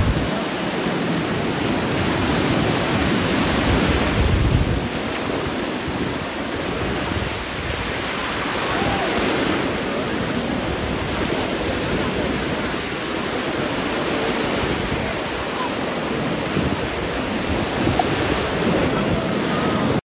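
Small sea waves breaking and washing through the shallows in a steady rush of surf. Wind buffets the microphone at times, as a low rumble heaviest about three to four seconds in.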